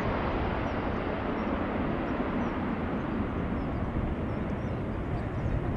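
Jet engines of a Boeing 777 airliner as it flares and touches down: a steady rushing noise, heard from a distance.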